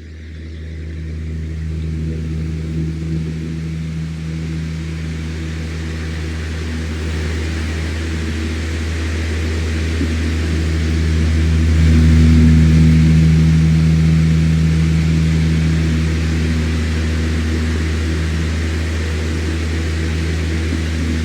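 Electric fan running steadily: a low motor hum with a few steady tones under an even, airy hiss. It fades in over the first couple of seconds and swells slightly about halfway through.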